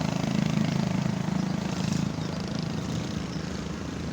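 An engine running with a steady low pulsing hum, easing off a little about halfway through.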